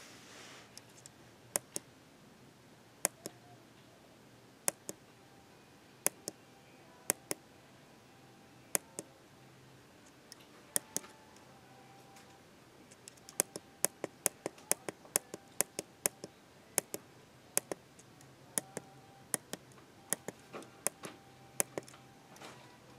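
Small tactile push button on a circuit board being pressed over and over, sharp clicks in close pairs. The presses come a second or two apart at first, then in a quick run about halfway through, stepping the timer's set time down.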